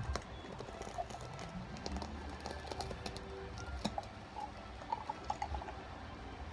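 Soft background music with scattered light clicks and taps over a low steady hum.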